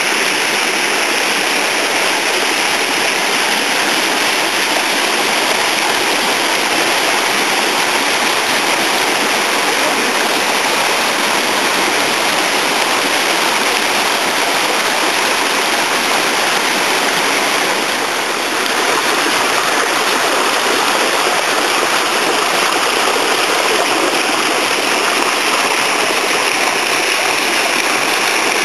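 Water rushing steadily down the stepped pools of a fish ladder, a loud, even flow.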